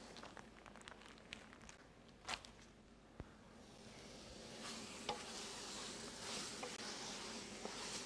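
Chicken pieces sizzling faintly in a hot stainless steel stockpot, with scattered crackles and a few light knocks. The sizzle grows stronger about halfway through.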